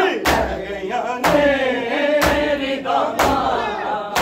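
A crowd of men beating their chests in unison about once a second (Shia matam), each slap a sharp strike. A chanted lament is sung over the beats.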